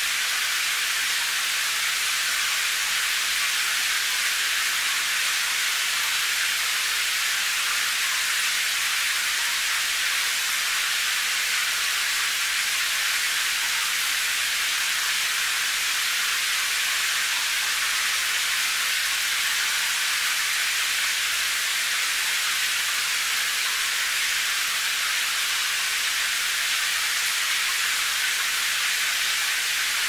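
Rain falling steadily as an even, high-pitched hiss, with little low rumble and no separate drops or thunder standing out.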